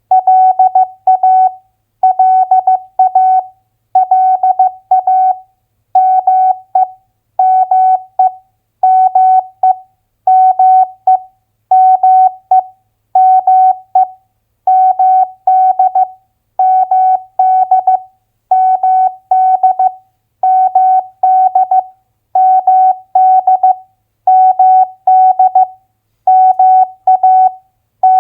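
Morse code at 15 words per minute: a single steady beep keyed on and off in short and long elements, spelling out two-letter US state abbreviations one after another with short silent pauses between them.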